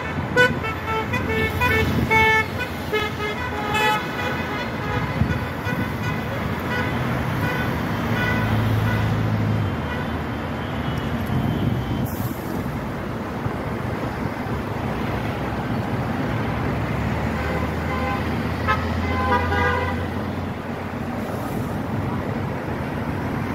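Car horns tooting in short repeated bursts, several in the first few seconds and another cluster about nineteen seconds in: drivers honking in support of roadside protesters. Under them runs steady road traffic, with the low rumble of heavier vehicles passing.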